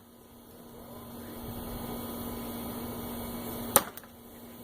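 A heavy throwing knife hits a wooden target of 2x4 boards with one sharp impact nearly four seconds in, followed at once by a smaller knock, over a steady low hum.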